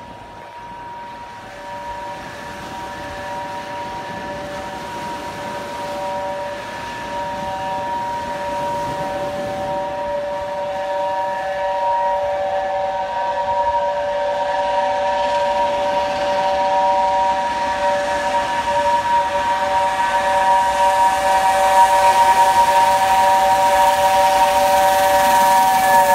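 The whistle of the Peppercorn A1 Pacific steam locomotive 60163 Tornado, stuck open and sounding one unbroken chord of several notes. It grows steadily louder as the engine approaches, with the train's rising hiss beneath it. At the very end the chord drops in pitch as the locomotive passes.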